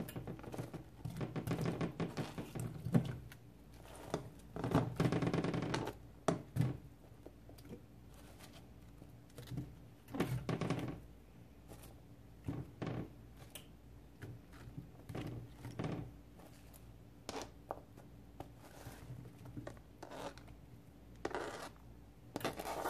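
Cauliflower florets being snapped apart by hand and dropped into a stainless steel pot, with irregular knocks and thunks as pieces land and the plastic cutting board is tipped over the pot. Denser stretches of crackly snapping come about one to three seconds in, around five seconds and around ten seconds.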